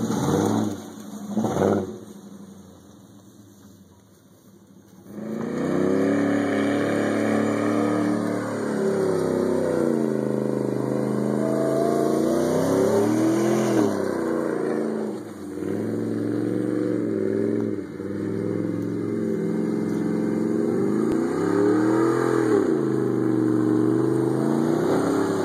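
Lifted GMC 2500HD pickup's 6.0-litre Vortec V8 revving under throttle as it drives off-road, the engine note rising and falling again and again. Two short revs open it, it drops quieter for a few seconds, then from about five seconds in it revs up and down almost without a break.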